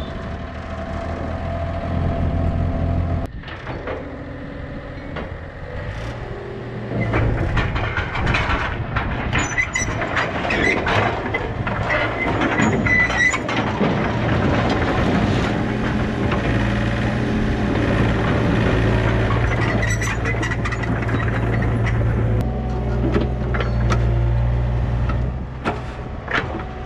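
Yanmar B37 mini excavator's diesel engine running, revving up about six seconds in, with repeated knocks and clanks as it drives its rubber tracks down the trailer deck and steel ramps.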